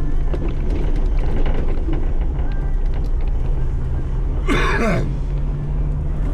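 Off-road vehicle engine running steadily at low speed, with small rattles and knocks from rough trail driving. About four and a half seconds in there is one short, sharp squeak that falls in pitch.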